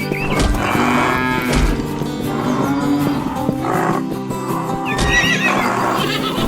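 Background music with a horse whinnying over it.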